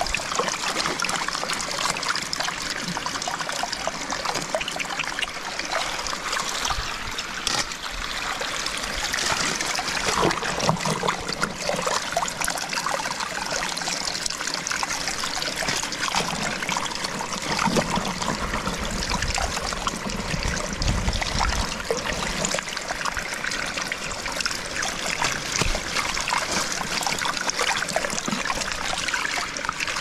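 Canal water running steadily over a shallow flow.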